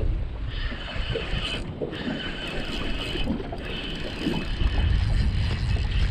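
Spinning reel being cranked in spurts, its gears giving a thin whir that stops and starts, while a hooked fish is reeled in. Wind rumbles on the microphone underneath.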